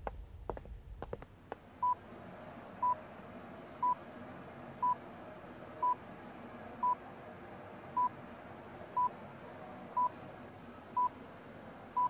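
Bedside patient monitor giving its heartbeat beep, one short high tone about once a second, a steady pulse of roughly 60 beats a minute, over a quiet hospital-room hiss. A few short taps sound in the first second before the beeping starts.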